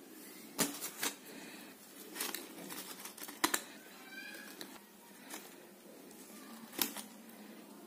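Aluminium foil crinkling in several sharp crackles as hands tear flatbread wrapped in it, the loudest crackle about three and a half seconds in.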